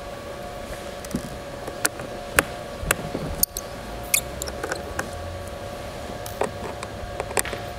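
Small screwdriver clicking and scraping in the bottom-plate screws of a Panasonic Toughbook CF-30 as they are undone: irregular sharp ticks, several a second at times, over a steady faint hum.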